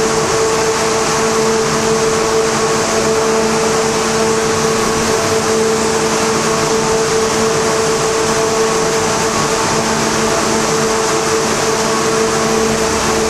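Steady, loud machine drone on a rolling road dyno with a Honda Integra Type R strapped on: a constant whine over a rushing hiss that does not change in pitch or level.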